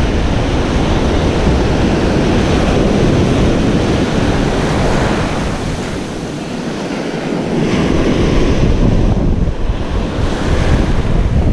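Ocean surf breaking and washing around the shallows, with wind buffeting the microphone in a heavy low rumble that eases briefly about six seconds in.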